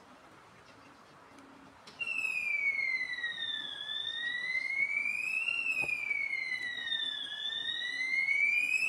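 Fire alarm system's electronic siren sounder comes on about two seconds in: a loud tone that slides slowly down and back up in pitch, roughly one full sweep every three and a half seconds.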